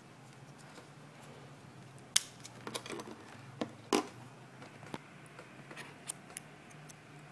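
Scattered sharp clicks and taps from hands handling a small plastic USB modem and SIM card, the loudest about two seconds in and about four seconds in.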